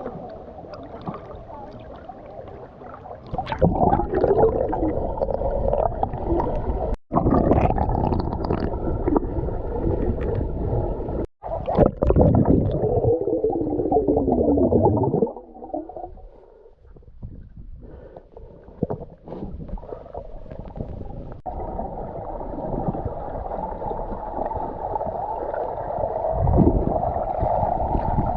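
Muffled gurgling and churning water heard with the microphone underwater, the sound dull with almost no high end, cutting off abruptly twice.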